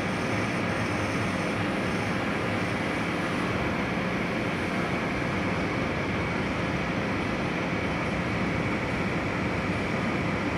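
Metal lathe running steadily while a cutting tool turns down a spinning metal bar, a continuous machine noise with a faint steady hum in it.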